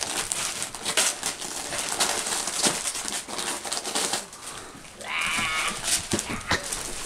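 Dogs ripping open gift wrapping paper, the paper crinkling and tearing in quick crackly bursts. About five seconds in, a brief high squeak stands out.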